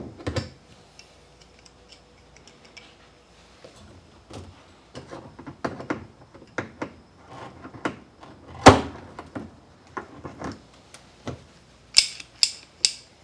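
Pliers working at a spring hose clamp inside a washing machine tub: irregular metal clicks and knocks, one heavier knock about two-thirds of the way through and three sharp clicks near the end.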